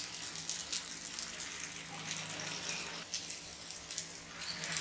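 Potato and sabudana patties shallow-frying in ghee in a nonstick pan over low heat: a gentle, steady sizzle with many small crackles.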